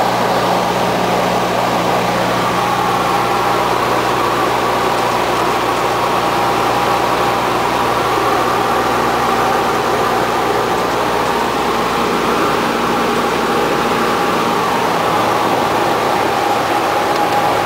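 Engine and propeller of a single-engine high-wing light aircraft, a steady loud drone heard from inside the cabin, mixed with wind noise. The engine note shifts slightly about halfway through.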